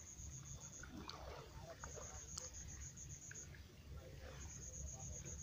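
Faint insects chirping in the night: trains of rapid high-pitched pulses, each about a second and a half long, repeating every couple of seconds. Underneath are a low rumble and a few soft clicks.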